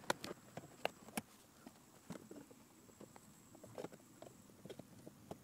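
Faint, irregular clicks and light taps of hard plastic, with one sharper click at the start: dashboard trim and its pressure clips being worked loose with a flathead screwdriver.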